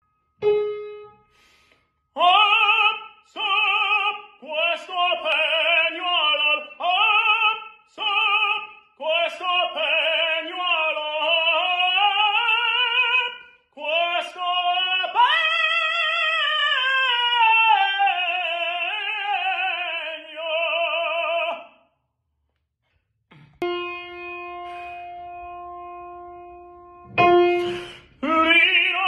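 Male operatic tenor practising high notes (acuti): sung phrases with strong vibrato, rising and falling in pitch, over piano notes he plays himself. The singing stops for about a second and a half, a held piano note sounds, another note is struck, and he starts singing again just before the end.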